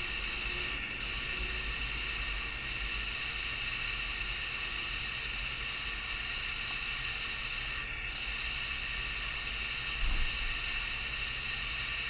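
Steady background hiss with a low hum under it, with a brief low thump about ten seconds in.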